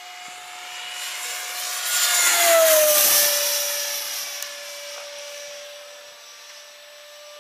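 Electric ducted fan of a FlyFly Mirage 2000 RC jet (a 10-blade Cyclone 70 mm fan on 6S) flying past: a high whine with rushing air. It swells to its loudest about two and a half seconds in, and its pitch drops as the jet goes by, then it fades.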